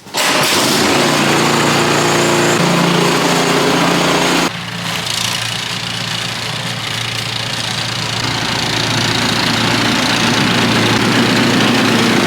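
An engine running steadily, with a sudden drop in level about four and a half seconds in.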